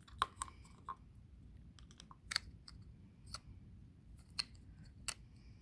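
Replacement plastic key fob casing being snapped shut and handled: a string of separate sharp plastic clicks, roughly one a second.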